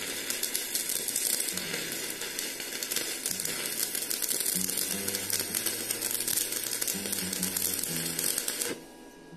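Electric welding arc crackling and sizzling steadily as a bead is run. It cuts off suddenly near the end, when the arc is broken.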